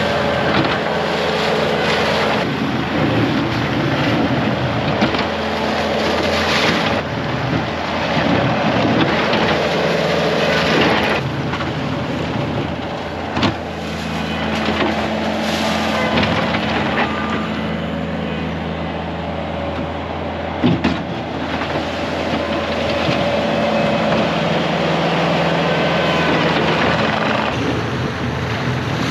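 Loader's engine running steadily while clearing snow, with wind on the microphone. Two brief knocks come through, one about halfway through and one about two-thirds of the way in.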